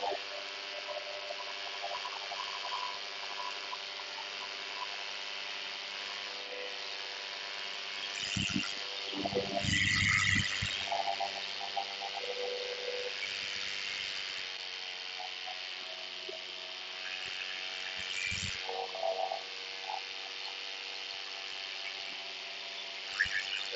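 Paramotor engine running steadily at a low, even speed, a small motor buzz with no revving. A few brief low thumps and rustles come about 9 to 10 seconds in and again near 18 seconds.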